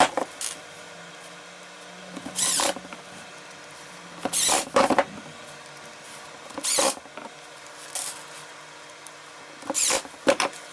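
Screws being driven into a cordless drill's plastic housing in about six short bursts, a second or two apart, as the housing is closed up.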